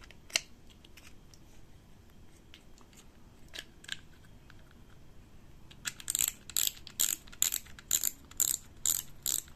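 Front drag knob of a Shimano Sienna spinning reel clicking as it is turned down onto the refitted spool. A few separate clicks come first, then from about six seconds in a steady run of sharp clicks, about two or three a second.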